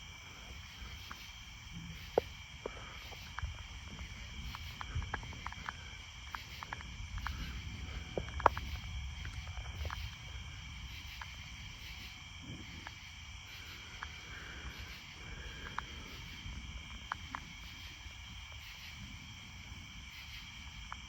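Steady chorus of night insects, crickets or katydids, with high pulses about once a second, over a low rumble and scattered short clicks.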